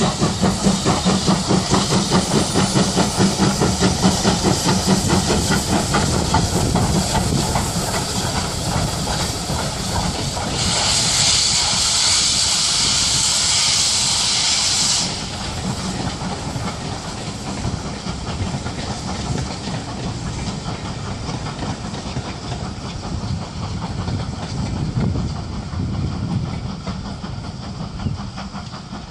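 Steam locomotive working past with a quick, even beat from its chimney exhaust, then a loud hiss of steam for about four seconds midway. After that, the quieter rumble of the coaches rolling by on the rails.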